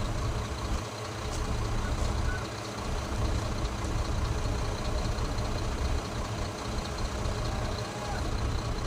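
Excavator's diesel engine running steadily with a low, even rumble.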